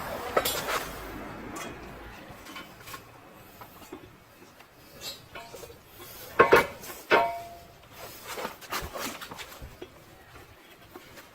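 Metal tools and parts being handled: scattered clicks and clinks, with a louder clatter about six and a half seconds in that rings briefly.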